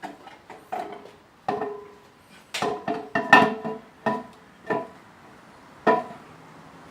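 A run of irregular metal clanks and knocks, some ringing briefly, from tools and metal engine parts being handled and struck. The loudest comes about three and a half seconds in.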